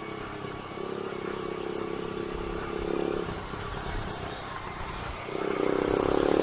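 Motorcycle engine running while riding, the throttle eased off about three seconds in and opened again about five seconds in, the engine note rising.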